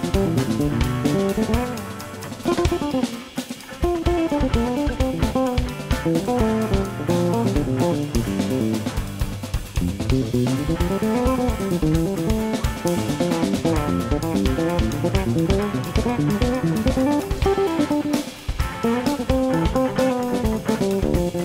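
Live jazz trio of electric guitar, electric bass and drum kit playing together, with many notes bending up and down over the drums. The playing thins out briefly about two to three seconds in.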